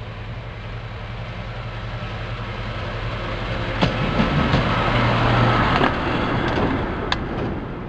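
Small rod-coupled diesel shunting locomotive running past on the track: a steady engine drone that grows louder as it comes up and passes, loudest about four to six seconds in, with a few sharp clicks from the wheels on the rails.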